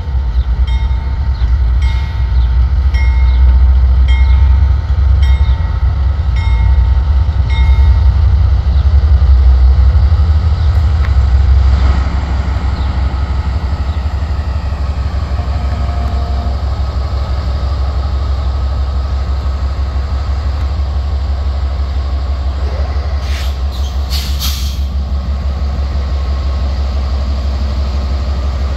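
Union Pacific GE diesel-electric locomotives rumbling past at low speed, loudest for the first dozen seconds as the lead units go by, then a steady rumble of the following train. A bell rings about once a second for the first eight seconds, and there is a short sharp clatter near the end.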